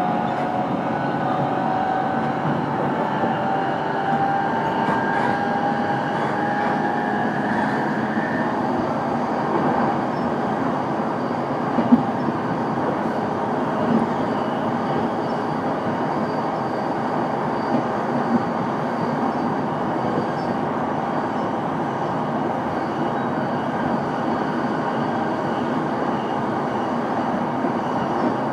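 Onboard running sound of a JR East E233 series electric train, heard inside motor car MoHa E233-1023: the VVVF inverter whine rises slowly in pitch and stops about eight seconds in, leaving the steady rumble of wheels on rail with a few light knocks.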